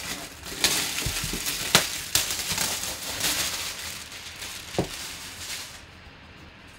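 Plastic shrink wrap crinkling and crackling as it is pulled off a cardboard box, with a few sharp snaps along the way; it dies down about a second before the end.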